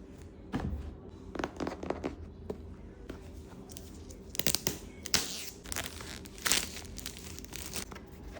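Packaging being opened by hand: irregular tearing and crinkling noises, loudest around the middle.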